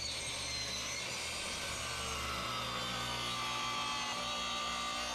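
Electric power tool cutting wood, its motor running steadily under load.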